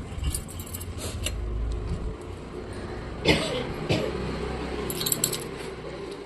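Handling noise: a low rumble as the phone is moved about, with scattered clicks and crackly rustles. A louder knock comes about three seconds in, and a quick run of crinkly clicks about five seconds in, the sort made by a plastic wrapper being handled.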